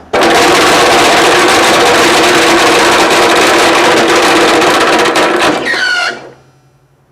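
Worn three-phase air compressor, run with its oil drained and piston rings already broken, starts suddenly and runs with a loud, fast mechanical clatter as it beats itself up. About six seconds in it is switched off and winds down, its pitch falling.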